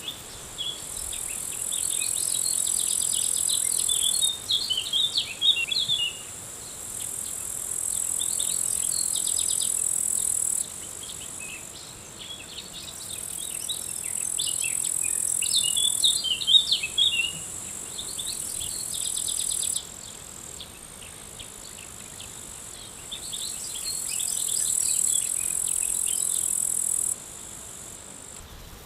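Summer field ambience: insects trilling high and steady in stretches of a few seconds that stop abruptly, with small birds chirping in quick clusters.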